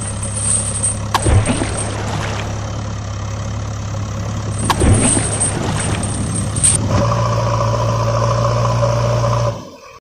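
A heavy-machine engine runs with a steady low hum, with a few sharp knocks and a high whine that comes and goes. About seven seconds in it changes to a steadier two-tone drone, then fades out just before the end.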